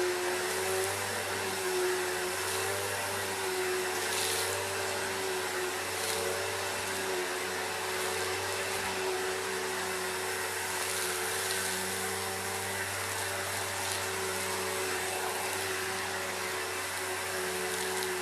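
Vacuum cleaner running steadily while sucking up gritty dirt: a steady motor whine over a broad rush of air, with a few faint ticks as grit goes up the hose.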